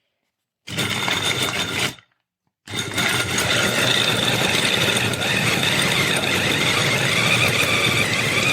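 Wancle 350 W electric food chopper running: a short burst of about a second, then after a brief pause a long continuous run, a motor whine over the rattle of the blade through the contents of the glass bowl.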